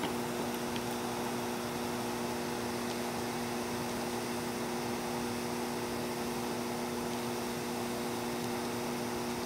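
Steady hum: a few held low tones over an even hiss, unchanging throughout.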